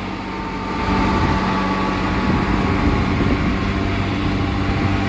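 Westinghouse J34 turbojet engine running on the pontoon, a loud steady rush over a low hum with a faint high whine. It gets a little louder about a second in.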